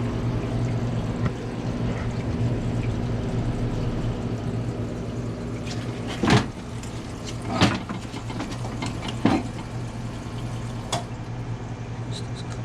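A steady low hum, with a few short clattering handling noises from metal compressor parts being moved and inspected, the loudest about six and seven and a half seconds in.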